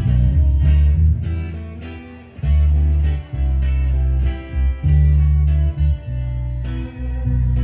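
Live music led by an electric guitar, with held deep bass notes changing about once a second underneath.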